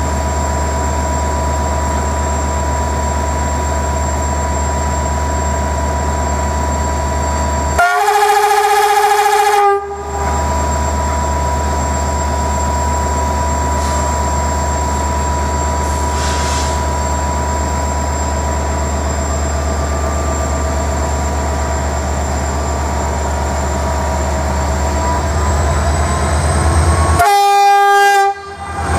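GM-engined CFR Class 65 diesel locomotive idling with a steady low hum and sounding its two-tone horn twice: a blast of about two seconds some eight seconds in, and a shorter one near the end. The engine grows louder just before the second blast as the locomotive prepares to depart.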